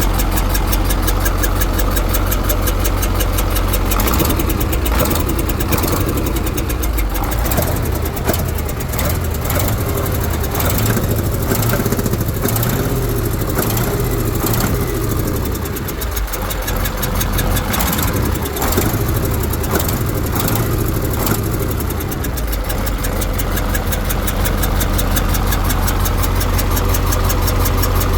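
KAMAZ truck diesel engine running with a rhythmic knock from inside the engine. It runs steadily at first, its speed rises and falls through the middle stretch, and it settles back to a steady run near the end.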